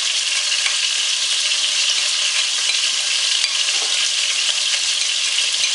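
Tilapia pieces frying in mustard oil in a pot: a steady hissing sizzle with a few faint pops.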